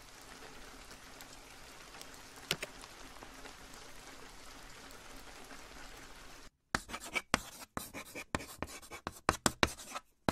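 Steady rain ambience. About six and a half seconds in it cuts out, and quick, irregular scratchy strokes begin, like chalk scribbling on a board.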